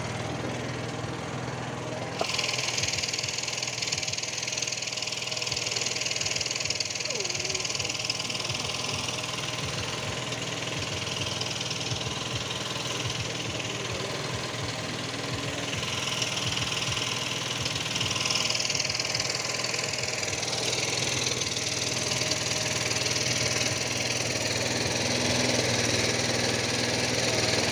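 Small engine running steadily at idle, a low even hum, with a steady hiss joining about two seconds in.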